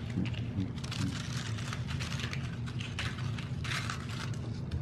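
Potato chips crackling as they are handled and crunched: a run of irregular crisp crackles, over a steady low hum.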